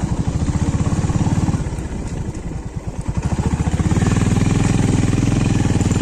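Motorcycle engine running while riding, its low firing pulse easing off about two seconds in and pulling harder and steadier again from about four seconds.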